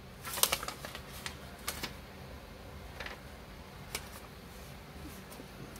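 Light scattered clicks and paper handling from sheets of notes being moved, a quick cluster about half a second in, then single soft ticks every second or so.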